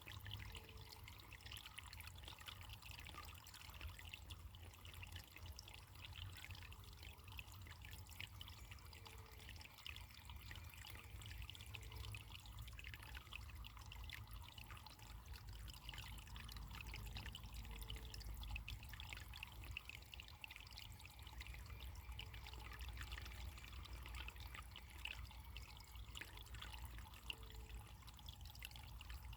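Running water trickling steadily, faint, over a low rumble.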